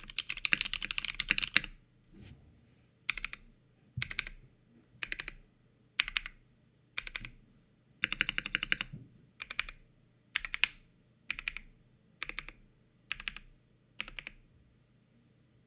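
Custom mechanical keyboard with lubed Novelkeys Cream linear switches, a 3mm acrylic plate and PBT keycaps being typed on: a fast run of keystrokes, then slower separate groups of keystrokes about once a second that stop shortly before the end.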